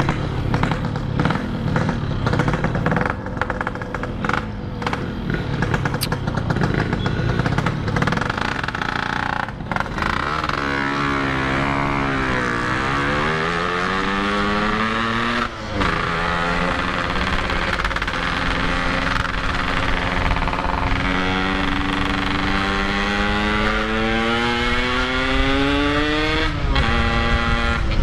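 Yamaha RX-King's two-stroke single-cylinder engine under way, choppy for the first third, then dropping in revs and climbing again. It changes gear just past halfway, then rises in a long steady climb to another shift near the end. Its carburetion is not yet set up, and the rider calls the tune still way off.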